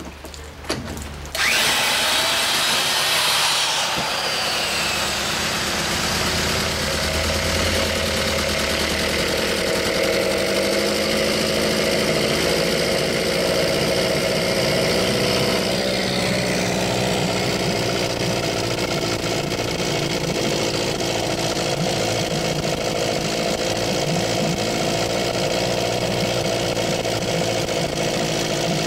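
Small 1963 Johnson 5 1/2 hp two-cylinder two-stroke outboard pull-started in a test tank. It catches about a second and a half in, its pitch rises and falls for a couple of seconds, then it runs steadily, freshly back together after a carburetor clean.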